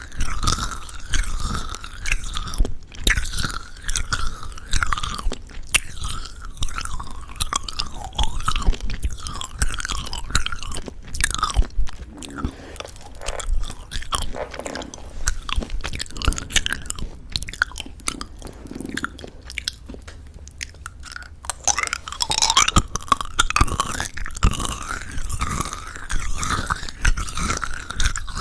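Close-up mouth sounds of chewing candy with a crisp sugar coating: crunching, wet smacking and sucking. Quieter and sparser for several seconds in the middle, then busier again near the end.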